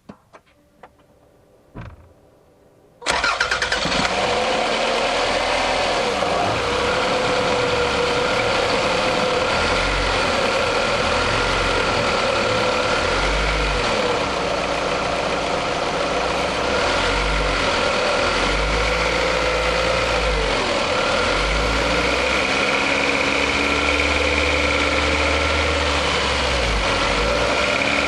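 Toyota 1AZ-FE 2.0-litre four-cylinder engine heard from inside the engine bay, warm and running under load while driving. A few clicks come first, then about three seconds in the engine noise jumps in loudly and keeps going, surging in pulses as the car is accelerated in jerks. Under these pulls a characteristic knock comes through near the end, the fault that is being recorded.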